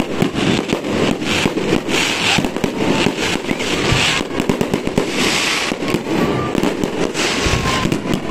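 Fireworks display: aerial shells bursting in quick succession, a steady run of bangs with repeated bursts of crackling from the glittering stars.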